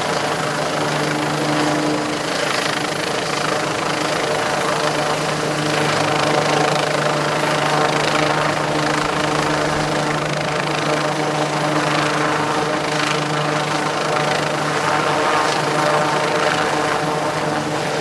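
Disaster-prevention helicopter running steadily: a continuous, unbroken din of rotor and turbine with a steady low hum underneath.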